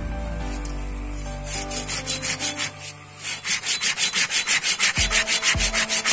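Homemade hand saw, cut from an old sawmill blade, sawing through green bamboo. Quick back-and-forth strokes start about a second and a half in, pause briefly, then settle into a steady rhythm of about four to five strokes a second. Background music fades out at the start.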